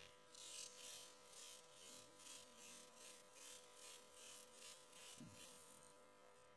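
Faint, rhythmic rustling of hands rubbing strands of wet hair together, about three strokes a second, stopping near the end, over a steady electrical hum.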